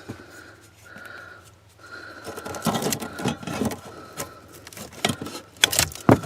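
Wire cutters snipping through the wires of a car's engine-computer wiring harness, with rustling and clicking as the harness and plastic plugs are handled. Several sharp snips come in the last couple of seconds.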